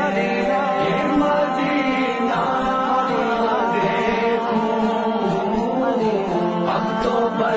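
Male voice singing a naat, an Urdu devotional song, in long drawn-out notes that glide slowly up and down, with no clear words.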